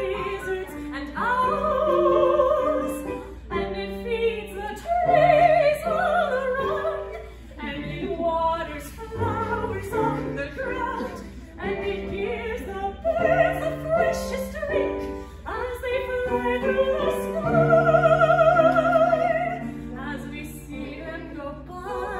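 A woman's operatic voice singing with strong vibrato over instrumental accompaniment, climbing to a long, loud high note with a wide vibrato near the end.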